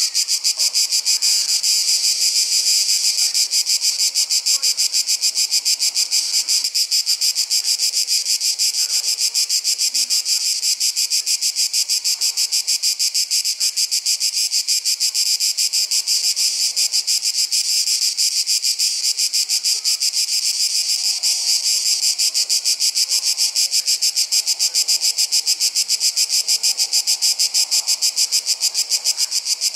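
A chorus of summer insects calling: a steady, high-pitched buzz made of rapid, even pulses that never lets up.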